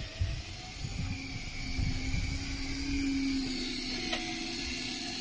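Electric deep-drop fishing reel whining steadily as its motor winds line up from deep water, growing a little louder about two seconds in.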